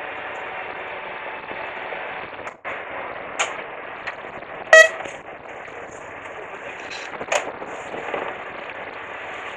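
Steady wash of wind and sea on a small fishing boat, broken by a short pitched honk about five seconds in and a couple of sharp clicks.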